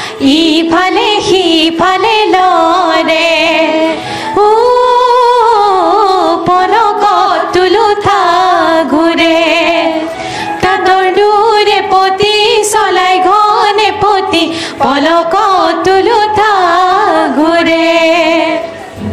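A group of women singing an Assamese song together into microphones, long held notes with vibrato, with short breaks between phrases about four and ten seconds in.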